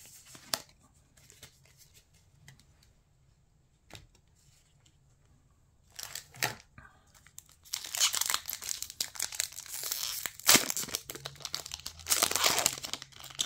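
Foil wrapper of a Pokémon TCG booster pack being torn open, crinkling and tearing loudly and continuously through the second half, with one sharp crack partway through. Before that there are only a few faint clicks of cards being handled.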